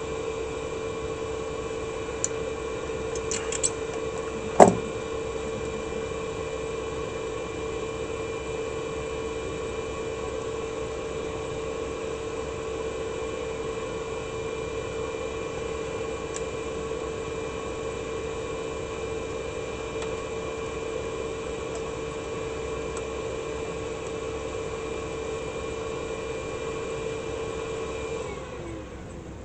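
Steady hum of a small motor that winds down and stops near the end. A few light clicks and one sharp tap come about four seconds in.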